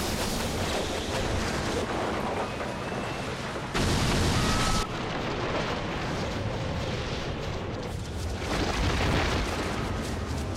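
Tornado wind tearing through a house: a dense, continuous roar of rushing wind, with a louder blast about four seconds in that lasts about a second.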